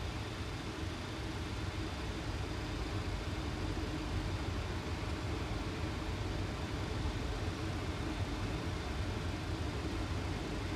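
Steady rush of airflow and engine hum on a Boeing 737 flight deck on final approach, with gear down and flaps at 30.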